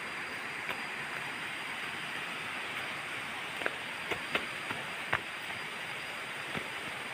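Steady rushing of a nearby river, with a handful of sharp cracks of dry twigs snapping underfoot around the middle.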